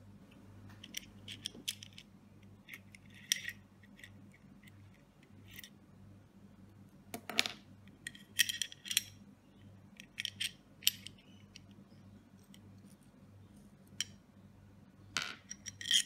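Small brass and steel parts of a disassembled knob lock clicking and clinking as they are handled, in scattered short taps that come thicker and louder in the second half.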